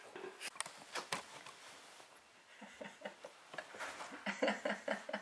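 Small dog, a Chihuahua, making short whimpering vocal sounds in quick runs of about four or five a second, growing stronger in the second half. A few light taps and clicks come before them.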